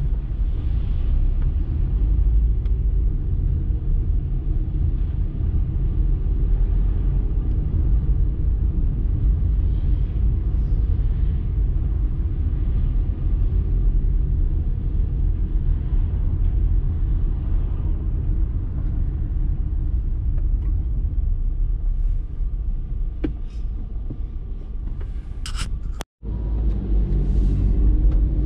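Car driving in city traffic, heard from inside the cabin: a steady low rumble of engine and tyre noise. About two seconds before the end the sound cuts out for a split second.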